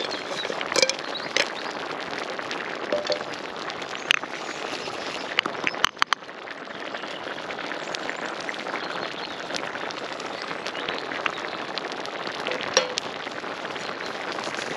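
Thick bean and smoked-sausage stew bubbling in a large cast-iron pan over a wood fire, with scattered pops and crackles over a steady rushing noise.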